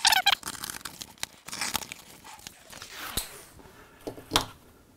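Packing tape on a cardboard box being slit with a knife and ripped open, a loud rip at the start, then cardboard flaps and plastic wrap rustling and scraping as the box is opened, with another sharp rip about four seconds in.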